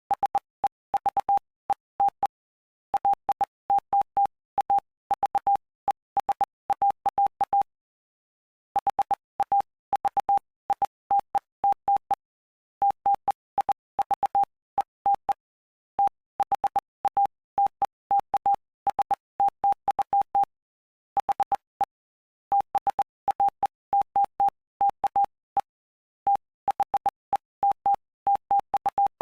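Morse code sent as a single steady beep, keyed on and off in short dits and longer dahs, spelling out the text of Mark chapter 8 for code practice. The characters run in groups separated by short gaps, with a few longer pauses between words or phrases.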